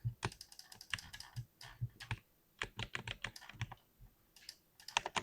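Typing on a mechanical keyboard with Cherry MX switches: quick, irregular runs of keystroke clicks, with a short pause about four seconds in.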